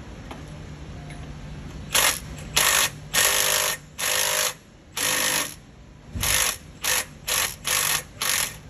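Cordless power wrench run in about ten short trigger bursts, starting about two seconds in, with a 12-point socket on a rusted-up nut on the EGR valve actuator arm: the nut is stuck and being worked loose.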